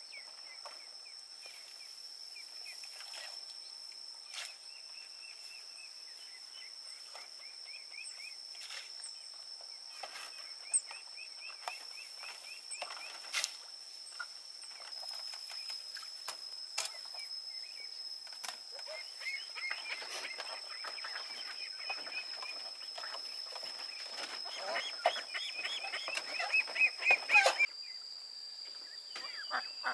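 Outdoor ambience: a steady high insect drone with repeated bird chirps and scattered clicks and knocks. The chirping and clicking grow busier and louder for a few seconds near the end.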